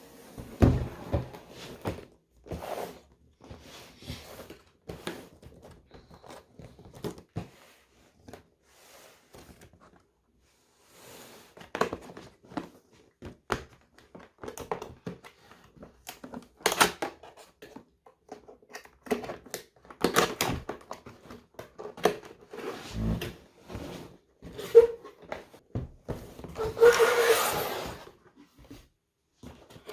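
A box being opened and its packaging handled: scattered irregular knocks, scrapes and rustles, with a dull thump about half a second in and another about two-thirds of the way through, and a longer rustling, tearing stretch near the end.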